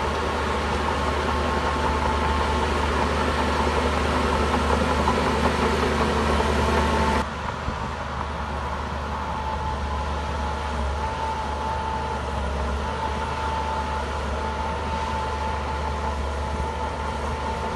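Diesel engine of heavy earthmoving machinery running steadily with a low drone and a steady whine. About seven seconds in the sound drops suddenly to a quieter level and carries on.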